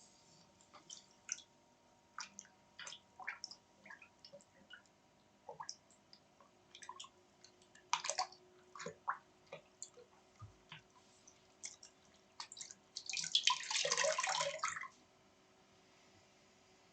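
A dog licking and smacking its lips: irregular short wet clicks and smacks, then a louder wet burst of about two seconds near the end.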